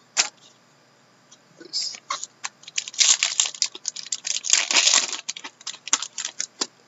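Foil Upper Deck Masterpieces hockey card pack being torn open by hand: a few seconds of crackling, crinkling tears, loudest in two stretches, after a single sharp click near the start.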